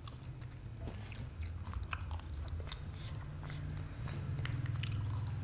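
Close-up crunching and chewing of a battered, fried onion ring, with many short crackles of the crisp coating. A low hum grows louder from about four seconds in.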